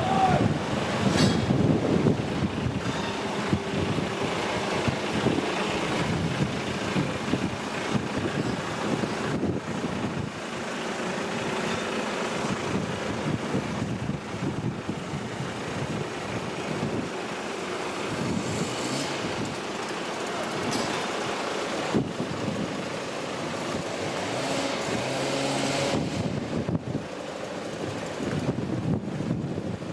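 Gusty wind buffeting the microphone over a steady, low engine drone.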